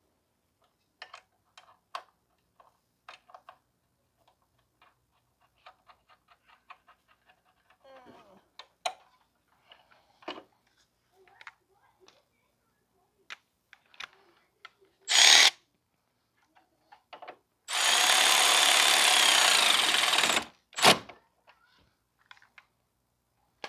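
Faint clicks and taps of small parts being handled, then a power tool runs: one short burst, a steady run of about three seconds, and another short burst.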